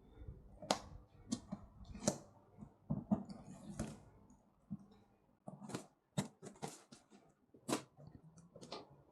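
Packaging being handled and unpacked by hand: an irregular run of short crinkles, rustles and light clicks, with brief pauses between them.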